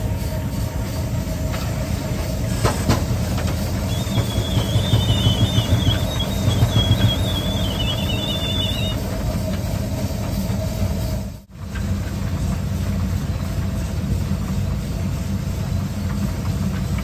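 Holt No. 111 steam traction crawler running: a steady, rough, low mechanical rumble with clattering, which grows louder and pulses for a few seconds. A thin, high, wavering squeal sounds from about four seconds in for some five seconds. The sound drops out briefly about eleven seconds in.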